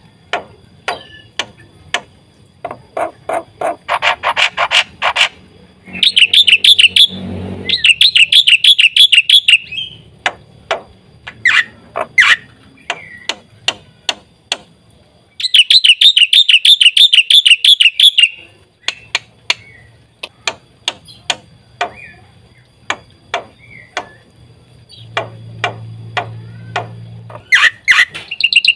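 Black-winged myna (jalak putih) singing: a string of short, sharp calls and whistles, broken twice by long, loud, rapid chattering trills, about six seconds in and again about halfway through.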